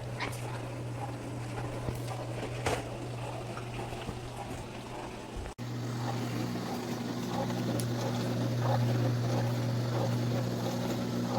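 COMFEE portable countertop mini dishwasher running a wash cycle: a steady low hum from its pump with the swish of water spraying inside. It cuts out for an instant about halfway, then carries on a little louder.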